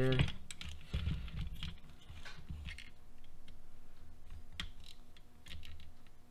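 Light, scattered clicks and rattles of small plastic RC-car parts being handled and fitted together, as a camber link is fitted to a Traxxas Slash's front suspension assembly.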